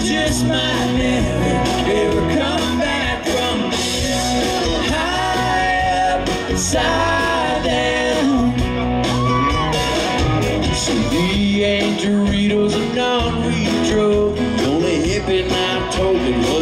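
Live country-rock band playing: drum kit, electric and acoustic guitars and bass, with singing over it.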